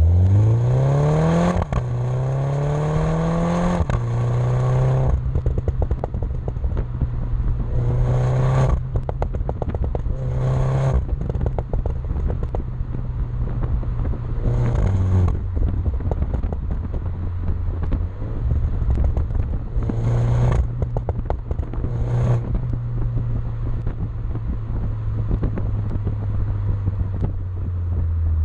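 MINI John Cooper Works F56's turbocharged 2.0-litre four-cylinder through a Maxi-Tuner Hexagon valve exhaust: revving up in the first two seconds, then running on with several short throttle blips. Dense crackling and popping comes from the exhaust on overrun.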